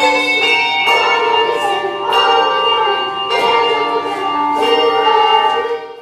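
A handbell choir ringing chords, struck notes ringing on, with a children's chorus singing over them; the music fades out near the end.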